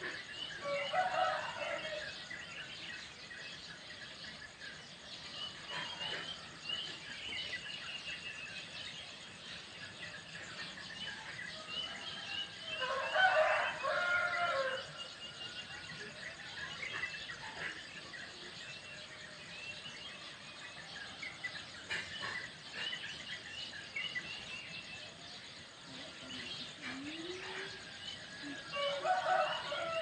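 Rooster crows three times, each lasting about a second and a half: near the start, in the middle (the loudest), and near the end. Between them, small birds keep chirping in short repeated series.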